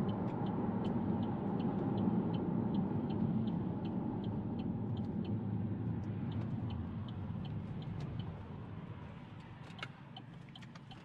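Car cabin noise while driving: a steady low rumble of engine and tyres that dies away over the last few seconds as the car slows. A light regular ticking about three times a second runs through it, and there are a few sharp clicks near the end.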